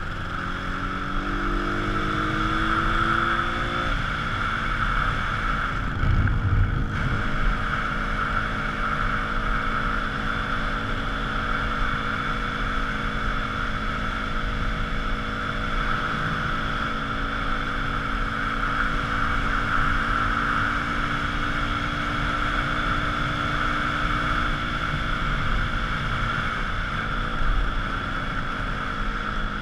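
Small motorcycle engine under way, the revs climbing over the first few seconds and then holding steady at cruising speed, with wind rushing past the helmet-mounted microphone. A short thump about six seconds in.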